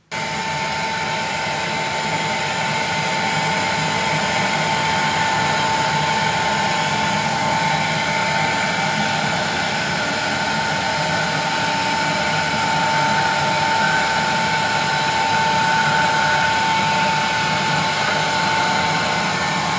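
Handheld heat gun running steadily, its fan blowing with a steady whine over the rush of air, heating a CRT's bonded safety lens to soften the PVA bond before the lens is lifted off.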